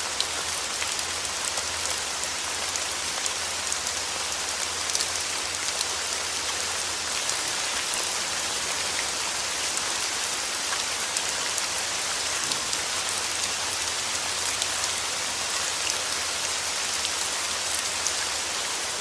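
Steady rain falling on a surface: a constant dense hiss with many small drop ticks scattered through it.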